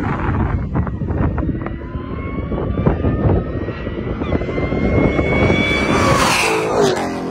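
A Ford Mustang accelerating hard at full throttle as it races toward and past, its engine note climbing steadily for several seconds. The sound peaks as the car sweeps close by about six seconds in, then drops lower in pitch as it pulls away. Wind buffets the microphone underneath.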